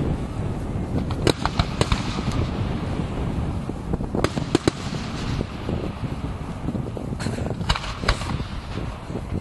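Fireworks display: a continuous rumble of shell bursts with many sharp crackling reports, in clusters about a second in, near the middle and towards the end.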